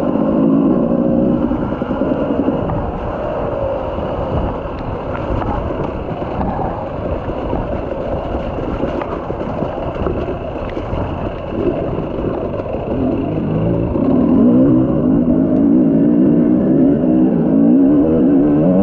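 Enduro motorcycle engine revving up and down as the rider works the throttle over the dirt trail, heard from on the bike. About three-quarters of the way in it gets louder and revs higher.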